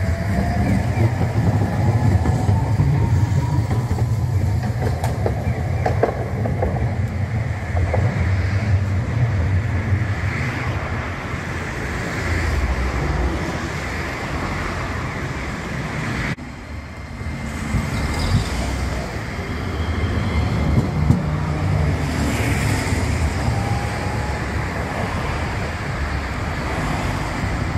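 Street tram running close by on in-street track: a strong low rumble of wheels on rail, with a rising whine near the start and a few sharp clicks a few seconds later. After a sudden cut about halfway through, road traffic passing.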